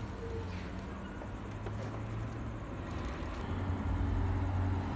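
Street traffic noise: a steady low engine rumble that gets louder about four seconds in.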